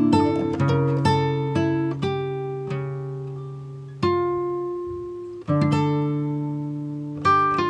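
Background music on plucked acoustic guitar: single notes and chords each ringing out and fading, with fresh chords struck about four seconds in and again about a second and a half later.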